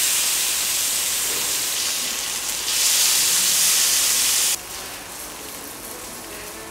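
Marinated fish fillets sizzling on a hot ridged grill pan: a loud, steady hiss that drops away sharply about four and a half seconds in, leaving a fainter hiss.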